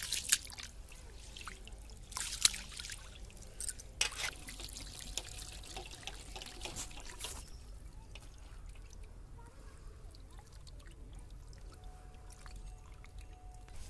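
Water-soaked basmati rice being rubbed and splashed by hand in a metal basin, then the rinse water trickling and pouring off the basin's rim onto the ground. The splashes come in the first half; a steadier trickle follows.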